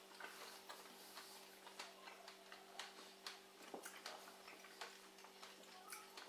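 Near silence with faint, wet clicking of people chewing fresh strawberries, a few clicks a second, over a low steady hum.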